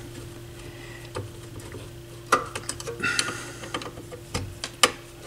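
Light clicks, taps and scrapes of hands and a small tool handling parts inside an opened stereo receiver's metal chassis, with the sharpest tap just before the end. A steady low hum runs underneath.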